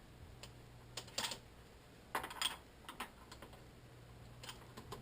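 Faint clicks and light metallic clinks of hand tools on the motorcycle's chain adjuster as it is backed off slightly, coming in a few short clusters.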